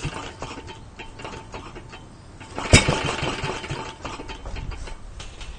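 Katsura H3 stationary engine on glow fuel being rope-started: the recoil starter is pulled, then about two and a half seconds in the engine fires with one sharp bang and runs unevenly for a couple of seconds before dying away.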